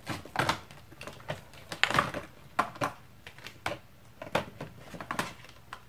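Irregular plastic clicks and taps as the long wand is fitted and pressed onto the upright body of a Dyson Ball Animal 2 vacuum cleaner. The loudest knock comes about two seconds in.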